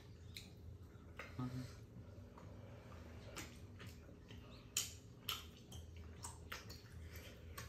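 Chopsticks clicking and scraping against a pan and dishes, with the mouth sounds of people eating tteokbokki rice cakes. The sharpest click comes about five seconds in, and there is a brief low voice sound about a second and a half in.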